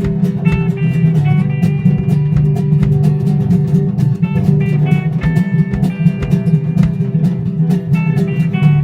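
Instrumental passage of a band song: short plucked guitar notes over a drum kit, with a steady low bass line.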